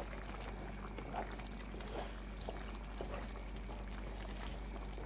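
Wooden spatula stirring thick bean and yam porridge in a pot: soft, wet sloshing of the beans and sauce with a few faint taps.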